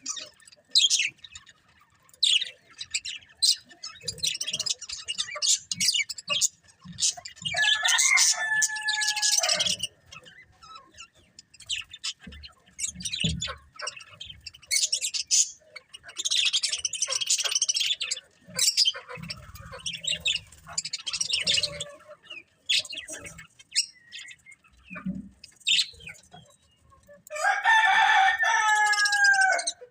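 Budgerigars chirping and chattering in quick, sharp chirps. There are two longer, louder bursts of warbling calls, one about eight seconds in and one near the end.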